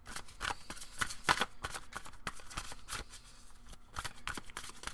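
A deck of tarot cards being hand-shuffled: an irregular run of card slaps and rustles.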